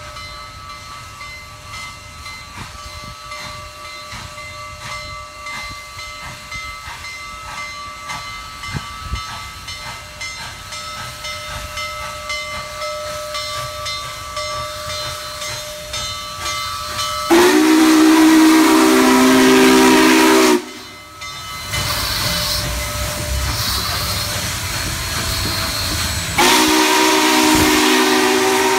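Union Pacific steam locomotive approaching and passing close by, its hiss and running noise growing steadily louder. About two-thirds of the way in, its steam whistle sounds a loud chord for about three seconds and cuts off sharply. It sounds again near the end as the locomotive goes by.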